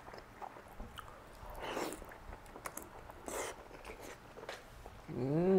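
Close-up mouth sounds of a man eating soft rice noodle rolls (cheung fun): chewing with small wet clicks, two short slurps as he sucks noodle off his chopsticks, and a brief hummed "mmm" near the end, rising then falling in pitch.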